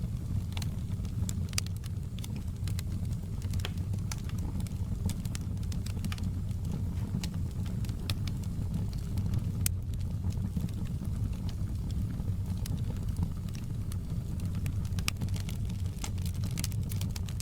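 Wood fire crackling in a fireplace: frequent sharp pops and snaps at irregular intervals over a steady low rumble of the burning.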